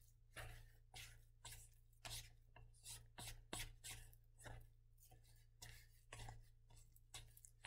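Faint, quick scraping strokes, about two a second, as a silicone spatula stirs and scrapes thick, gritty salt dough around a stainless steel mixing bowl while it comes together into play dough.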